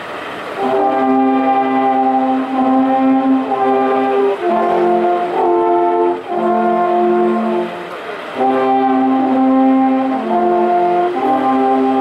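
An ensemble of alphorns playing a slow tune in held chords, with short breaks for breath between phrases.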